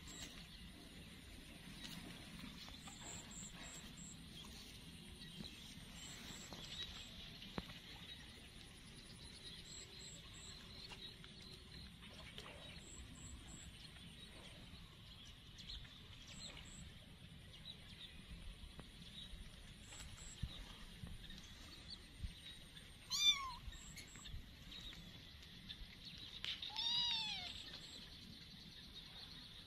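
Kitten meowing twice: a short, high meow about two-thirds of the way through, then a longer meow that rises and falls a few seconds later.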